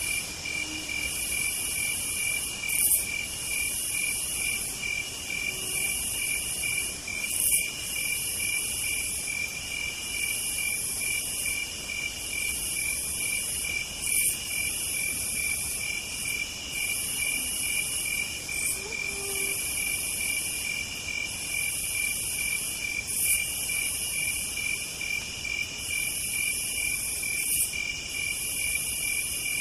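Night chorus of singing insects: a steady, fast-pulsing high trill, with a higher buzzing song layered over it in repeating phrases about a second long.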